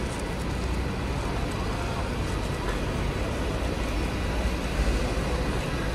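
City street traffic: a steady low rumble of road noise, with a coach's engine running close by.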